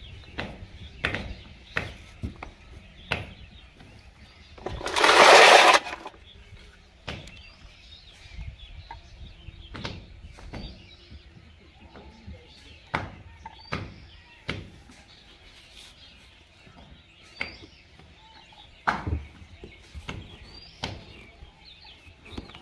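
Scattered clicks and knocks as plastic pipe fittings and a tin of solvent cement are handled and pushed together, with one loud burst of noise lasting over a second about five seconds in. Faint bird chirps near the end.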